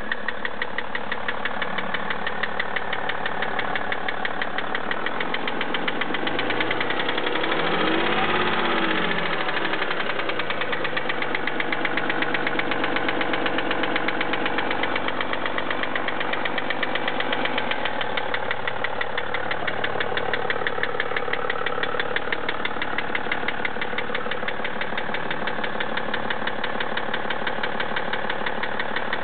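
BMW 530d's 3.0-litre straight-six diesel running with a steady, rapid mechanical clacking and rattling from the engine. The engine note rises and falls once about a quarter of the way in. The hydraulic lifters have already been replaced, so they are not the cause.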